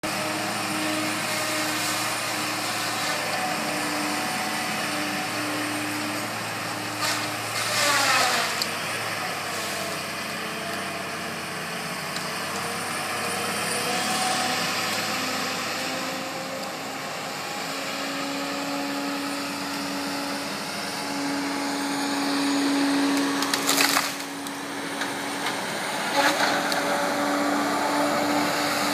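Tracked Cat tree-felling machine at work: its diesel engine and hydraulics run steadily with a held whine, broken by loud bursts of cracking, splintering wood about eight seconds in and twice more near the end as trees are cut.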